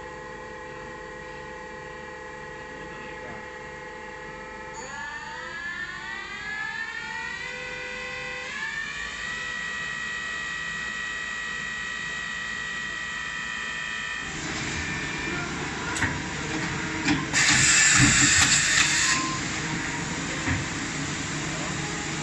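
Mazak Integrex 200-SY turning centre's lathe spindle spinning a metal workpiece, a steady whine of several tones that rise in pitch about five seconds in as the spindle speeds up, then hold. About fourteen seconds in the sound changes to a lower machine hum, with a loud hiss lasting about two seconds a little later.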